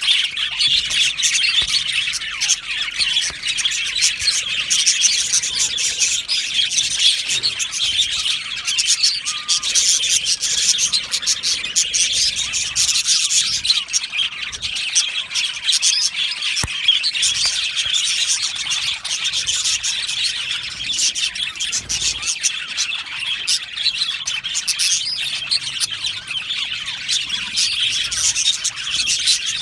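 A colony of budgerigars chirping and chattering all at once, a dense, unbroken twittering.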